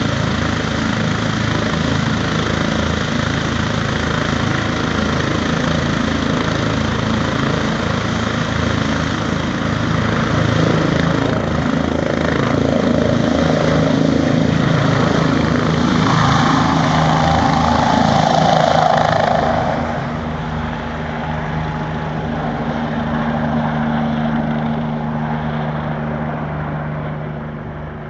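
Medical helicopter taking off: steady rotor and turbine noise, loudest a little past halfway through, then fading.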